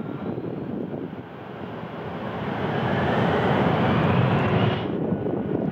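Jet airliner's engines growing louder, with a whine that rises in pitch over a rumble; the whine cuts off suddenly near the end, leaving the low rumble.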